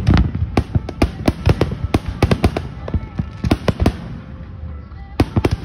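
Aerial fireworks shells exploding in a rapid, irregular barrage of bangs. The bangs ease off briefly about four seconds in, then pick up again near the end.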